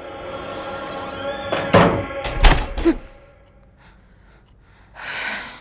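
A door squeaking briefly and then banging shut with a loud thunk, followed by two more knocks, about two seconds in, over a steady musical drone that fades. A short breathy rush comes near the end.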